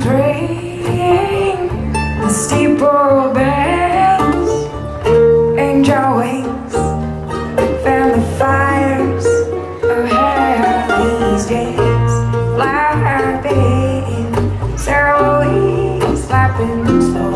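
Live acoustic folk string band playing a song: singing over strummed acoustic guitar, banjo and upright bass.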